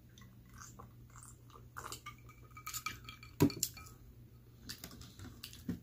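A drinking glass being set down, with light clinks and a brief ringing among small knocks and rustles. A single sharp knock about three and a half seconds in is the loudest sound.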